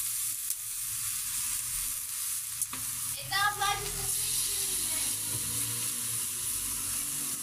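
Green peppers and tomato slices sizzling steadily on a hot electric sac griddle, being turned and pressed with a wooden spatula; a single sharp click about two and a half seconds in.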